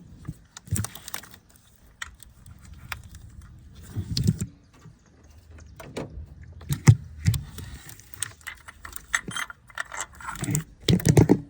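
Metal tools and sockets clinking and clanking, with irregular sharp taps and a few heavier knocks.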